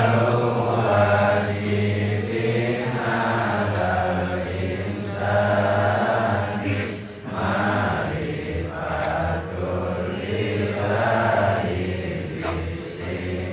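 A congregation of men chanting a devotional chant together in unison, in phrases of a couple of seconds separated by brief breaths.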